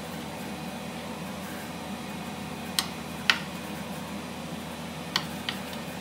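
A serrated knife clicks sharply against a hard chopping board four times as steak fat is trimmed: two clicks about three seconds in, two more near the end. Under them runs the steady hum of a kitchen appliance.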